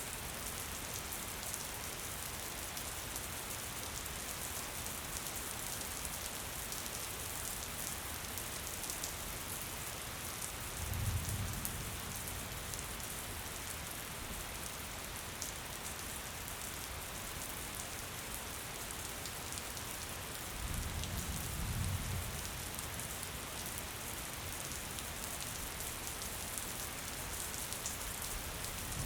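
Steady gentle rain falling, an even hiss with fine patter of drops. A low rumble swells briefly twice, about a third of the way in and again past two-thirds.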